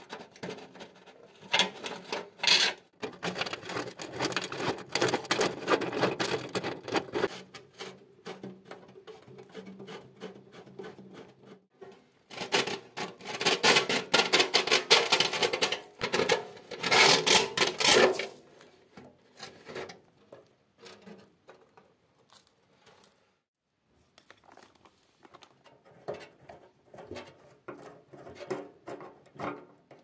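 Screwdriver working screws out of porcelain insulators on an old electric heater's metal casing: metal scraping and quick clicking. It comes in two long busy stretches, the second the loudest, then thins to scattered light clicks and taps near the end.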